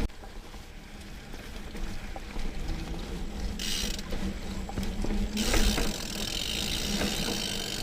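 Rear freehub of a Diamondback Mason Trail plus mountain bike ticking rapidly as the rider coasts along single track. A brief hiss comes about three and a half seconds in, and a louder steady hiss joins about five and a half seconds in.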